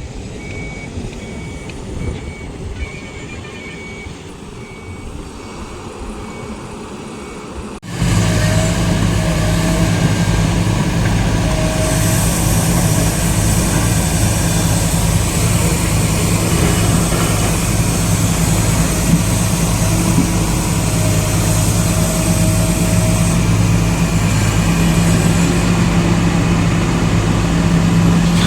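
Heavy diesel engine of earthmoving machinery (excavator or dumper) running steadily. The first eight seconds are quieter, with a faint repeated beeping; then the sound suddenly jumps to a much louder, close engine.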